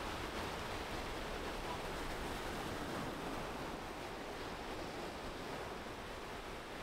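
Surf breaking and washing around the waders, a steady rushing noise.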